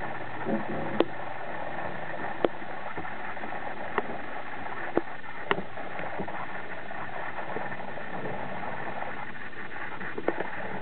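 Steady hiss-like background noise with six sharp clicks or knocks scattered through it.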